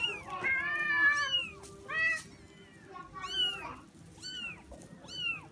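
Kittens mewing over and over: about seven high calls, each rising then falling in pitch, one near the start drawn out for over a second.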